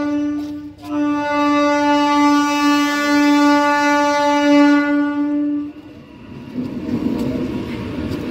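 Approaching electric train's air horn: a blast that ends just after the start, then a second, longer steady blast of about five seconds that cuts off. After it, the rumble of the train's coaches passing on the rails.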